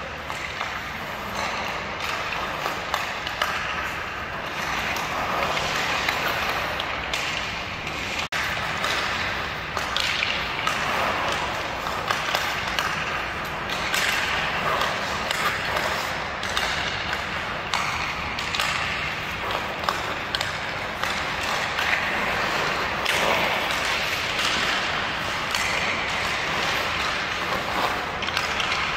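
Ice hockey skate blades carving and scraping on rink ice in swells every second or two as the skater turns, with scattered sharp clicks of the stick blade on the puck.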